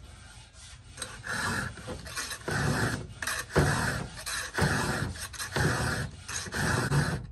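Round file rasping across the cutter teeth of an Archer skip-tooth chainsaw chain, hand-filing to sharpen it. The strokes start about a second in and repeat at roughly one every half second to a second.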